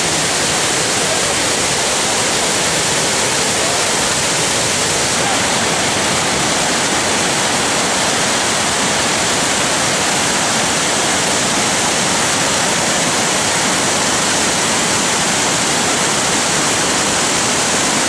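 A monsoon-swollen waterfall in full flood, its water rushing steadily and loudly without a break.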